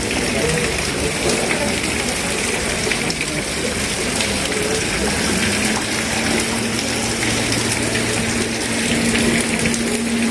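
Steady rushing water, with a low steady hum that fades out early and comes back about halfway through.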